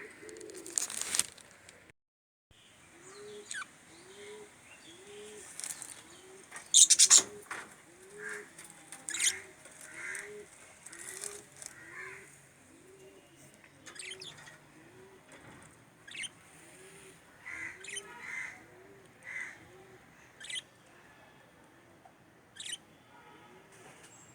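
Birds calling: a soft low cooing note repeated about every two-thirds of a second, with sharp high chirps and squeaks scattered over it, loudest about seven seconds in. The sound cuts out briefly about two seconds in.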